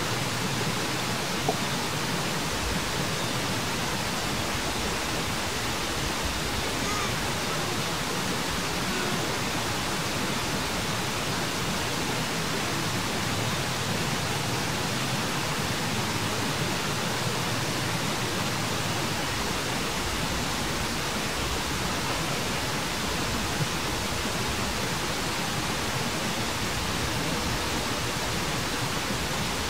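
A steady, even hiss that holds the same level throughout, with no distinct calls or knocks standing out.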